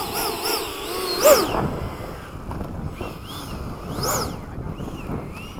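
Whine of the FMS 80mm Hawk RC jet's electric ducted fan, its pitch swinging up and down, with two sharp upward swells about a second in and again about four seconds in, then settling to a steady high tone near the end. Wind rumbles on the microphone underneath.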